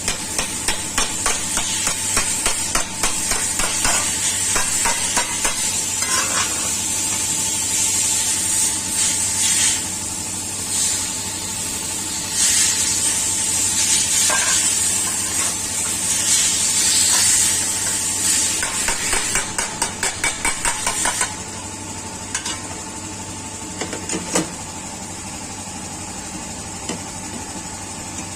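Rough scraping and rubbing on the Maruti 800's sheet-metal body during hand dent repair, in long uneven strokes, with a quick run of light taps about twenty seconds in and only a few sharp clicks after that.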